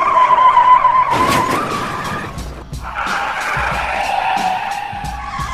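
Cartoon car sound effect: a car speeding away with its tyres squealing, over background music.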